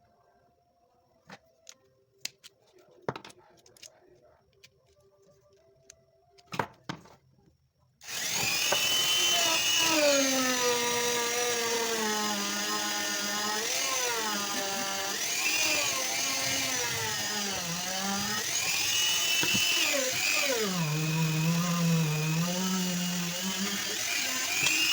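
A few light clicks and knocks of handling. Then, about a third of the way in, a small handheld power tool starts and runs to the end, its whine dipping and rising again and again as it is pressed into the work and eased off.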